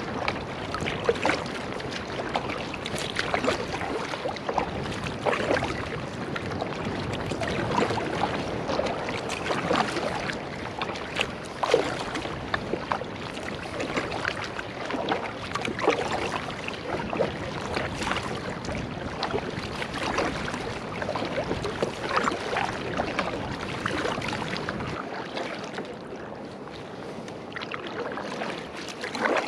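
Kayak paddle strokes on the sea: the double-bladed paddle dipping and splashing in a steady rhythm, with water running and trickling off the blades and along the hull.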